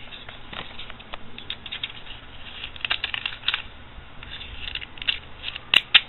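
A small packet and a plastic measuring scoop being handled and scooped from: irregular light rustling, scratching and clicks, with one sharper click near the end.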